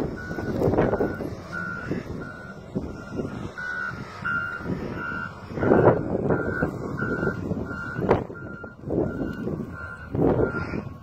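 Reversing alarm of a snowplough wheel loader beeping steadily, about one beep every 0.7 seconds, over the low running of the machine's engine. Loud rushing swells of noise rise and fall a few times.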